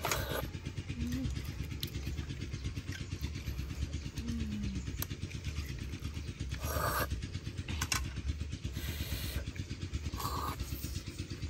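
A small engine running steadily with a low, even pulse, with short sucking sounds of someone eating about seven and ten seconds in.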